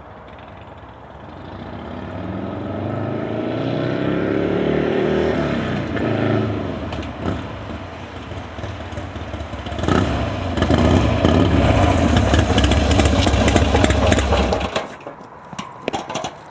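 Buell XB9R's air-cooled V-twin running through an aftermarket Special Ops exhaust. The revs climb in pitch over about four seconds, then drop back. It is revved loud again for several seconds before cutting off suddenly, leaving a few sharp clicks.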